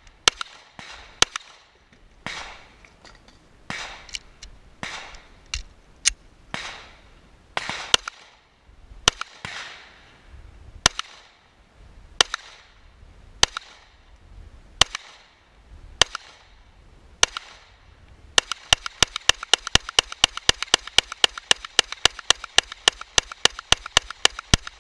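Gunfire at a shooting range: single shots about once a second, each with an echoing tail. About eighteen seconds in, a fast, even string of shots follows at about four a second.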